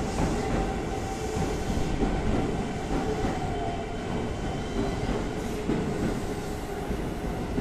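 A Toei 5300-series electric train pulling in alongside the platform: a steady rumble of wheels on rail with high, steady whining tones over it.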